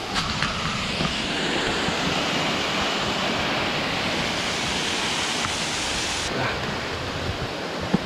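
Waterfall rushing steadily: a dense, even hiss of falling water, whose highest part thins out about six seconds in.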